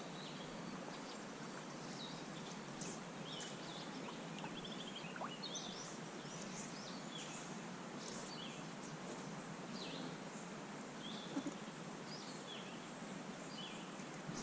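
Steady faint rush of creek water with songbirds chirping and calling many times over it, and a couple of small knocks about two-thirds of the way through.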